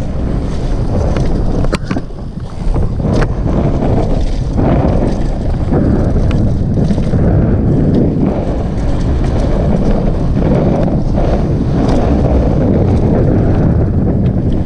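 Wind buffeting a rider-mounted action camera's microphone on a fast downhill mountain-bike run, with the bike rattling and the tyres rumbling over the trail. There are a couple of sharp knocks about two and three seconds in.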